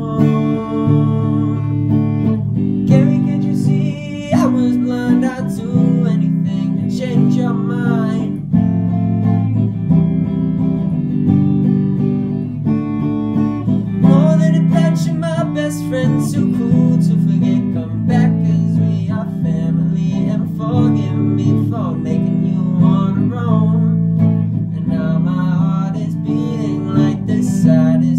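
Electric guitar played on its own, a continuous run of picked notes and chords with some notes bent and wavering.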